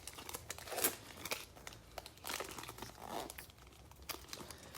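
Foil wrapper of a trading card pack crinkling and tearing as it is opened, in scattered short crackles.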